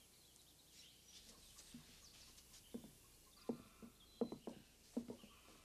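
Near silence: quiet room tone with a few faint, short clicks in the second half.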